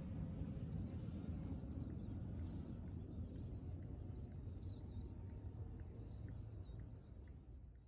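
Faint outdoor ambience: a steady low rumble with small bird chirps and repeated short high clicks, fading out near the end.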